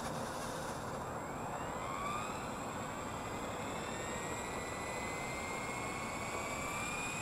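Blade 230S V2 RC helicopter's electric motor and rotor spooling up on the pad: whining tones that rise slowly in pitch, over a steady high tone and a steady hiss.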